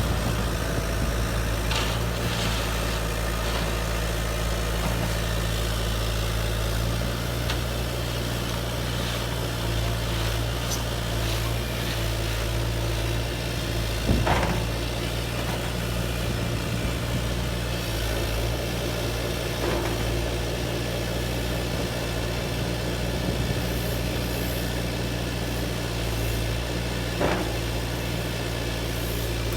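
A steady low engine-like hum, with a few short knocks and clicks over it, the clearest about halfway through and again near the end.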